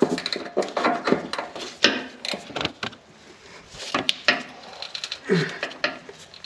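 Open-end wrench clinking and scraping against the rust-seized upper shock-mount nut of a 3rd-gen Toyota 4Runner, in short, irregular strokes as the wrench is worked and repositioned. It is slow going.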